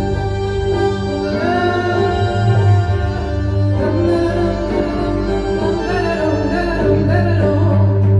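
Live ambient jam music: a steady low drone under sustained chords, with a wavering melodic line that glides in pitch above them.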